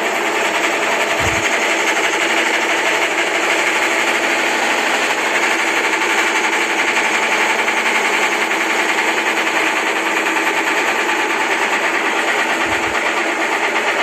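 Consul CWG11 top-loading washing machine spinning its tub at speed in a suspension test, motor and drum running with a steady mechanical hum and rattle.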